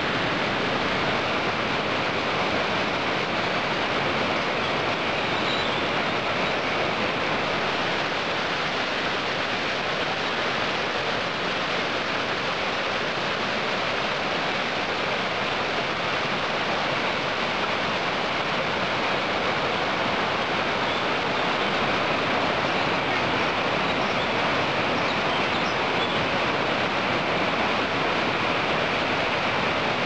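Mountain stream rushing over rocks and small cascades: a steady, unbroken water noise.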